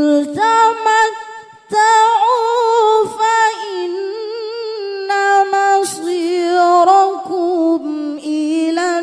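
A woman's solo voice chanting a Qur'an recitation in the melodic tilawah style, holding long ornamented notes that waver and turn in pitch. There is a brief breath break about one and a half seconds in.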